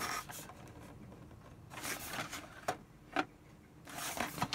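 A cardboard model-kit box handled and turned over in the hands: faint rustling and scuffing of card against the fingers, with a few light taps.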